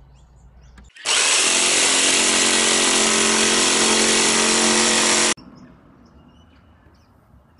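Jigsaw cutting a hole through the fiberglass floor of a sailboat's anchor locker: steady motor running with the blade's rasp, starting suddenly about a second in and stopping abruptly about four seconds later.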